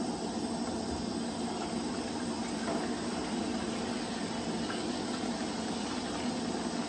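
Coleman camp stove burner running at full flame under a pot of sugar water, a constant, even rushing noise.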